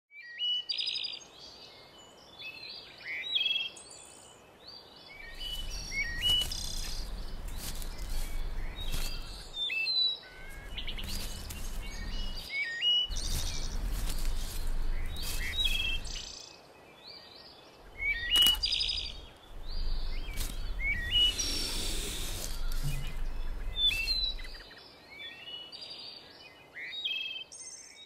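Several birds chirping and calling in short, repeated phrases. A low rumble comes and goes underneath for several seconds at a time, with a few brief sharp clicks.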